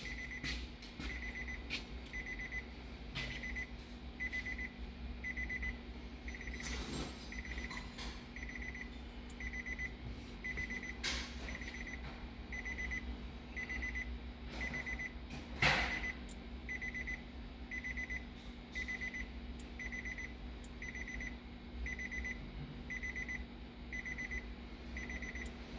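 Electronic beeper sounding a short, rapidly pulsed high beep that repeats evenly a little more than once a second, over a steady low hum, with a few faint clicks.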